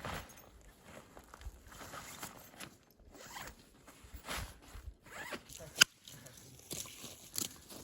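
A zipper pulled open and shut in several short, uneven strokes, with a sharp click near the end.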